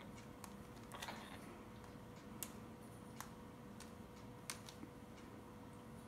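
Faint sharp clicks from pet parrots' beaks: a handful of single ticks at irregular intervals, a few close together about a second in, over a faint steady hum.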